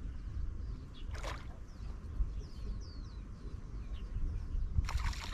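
Small birds chirping over a steady low rumble. Near the end comes a burst of splashing at the water's surface as a hooked fish is played on a long hand pole.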